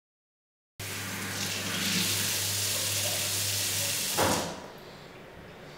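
Tap running into a sink, starting about a second in. About four seconds in, a splash as water is cupped up onto the face, after which the running water is quieter.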